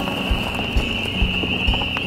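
Background music with a steady beat of about two soft thumps a second under held, shifting tones, over a steady high-pitched hum.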